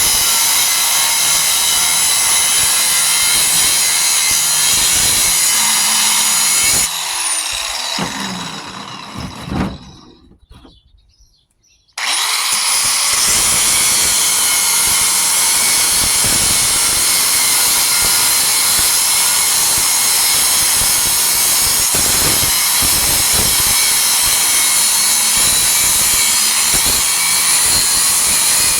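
Electric power tool running at a steady high speed, cutting into the steel shell of a scroll compressor. About seven seconds in it is switched off and winds down with a falling whine to silence. It starts again about twelve seconds in and runs steadily.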